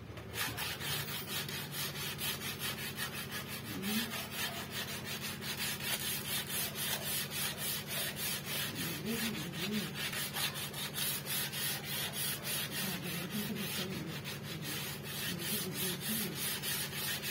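Teak wood being hand-sanded with a sheet of sandpaper: quick, even back-and-forth scratchy rubbing strokes, about three a second. This is the smoothing of the bare frame ahead of polishing.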